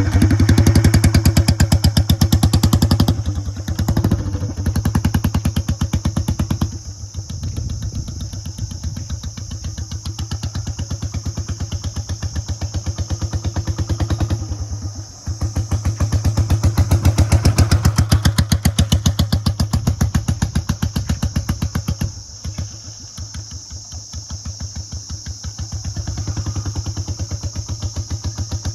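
Royal Enfield Bullet 350's single-cylinder engine running with no silencer fitted, a loud open-exhaust beat. It is revved up briefly near the start and again about halfway through, dropping back to a lumpier, quieter run between.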